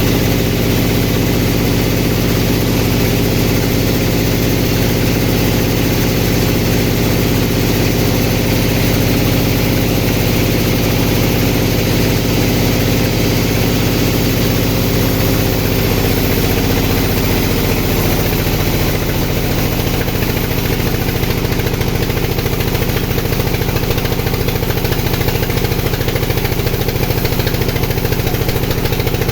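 Engine of a sawmill running steadily, its pitch settling a little lower a little past halfway through.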